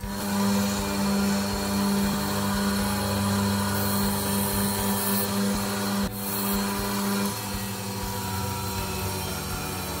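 Bench grinder motor running with a steady hum and a hiss. The sound dips briefly about six seconds in.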